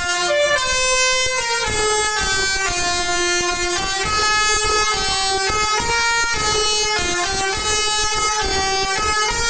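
Basuri telolet bus horn, a set of electric multi-tone air horns, playing a melody: loud chords of held notes that step to new pitches two or three times a second.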